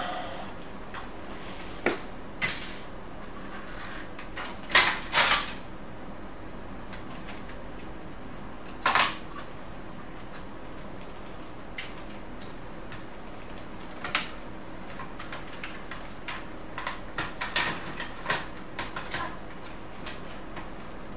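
Scattered clicks, knocks and rattles of plastic and sheet-metal printer parts being handled and fitted into the chassis of an HP LaserJet P3005 laser printer during reassembly. There are two louder knocks about five seconds in, another at about nine seconds, and a quick run of small clicks near the end.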